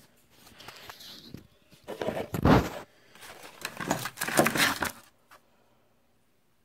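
Handling noise: a wooden handle strip and a steel knife blank are moved and rubbed about on a workbench, in two loud bursts of rustling and scraping a couple of seconds apart.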